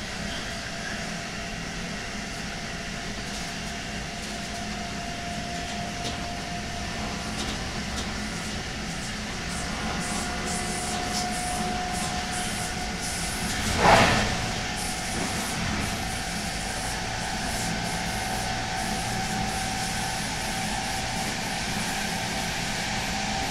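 GTO-thyristor traction inverter (Adtranz/ABB MICAS-S) of a DB Class 101 electric locomotive, heard from the adjacent coach: a steady whine over the rumble of the running train, stepping slightly higher in pitch partway through. One brief loud swell of sound a little past halfway.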